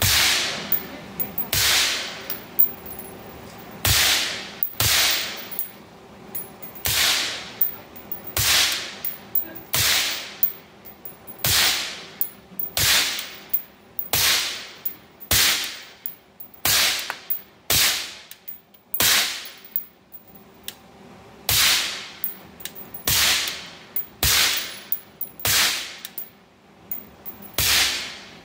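Semi-automatic AR-15 in 5.56/.223 with a 16-inch mid-length barrel, fitted with a Rugged Alaskan 360 suppressor, firing a long string of single shots about one to two seconds apart. Each shot is a sharp crack followed by a short echoing decay.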